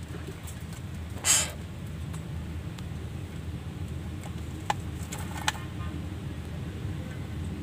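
A greater coucal scuffling with a snake on a concrete floor. There is one short rustling burst about a second in and two sharp clicks later, over a steady low rumble.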